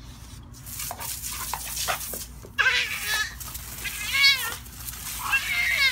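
Baby's high-pitched squealing laughter in three wavering bursts over the second half, over a steady hiss of garden-hose spray with a few clicks in the first couple of seconds.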